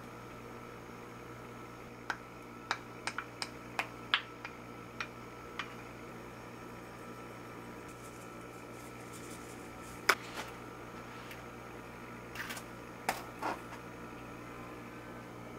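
A spoon clinking against a ceramic mug about nine times as soup is scooped out. Then a dried-parsley shaker is shaken, followed by a sharp knock and a few light knocks on the counter. A steady low hum runs underneath.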